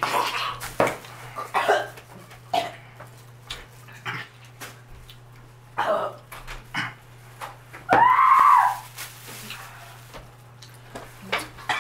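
People coughing and gasping from the burn of a Trinidad Scorpion pepper gumball, with ice clinking in a glass of water. About eight seconds in comes one loud pained cry, about a second long, that rises and then falls in pitch.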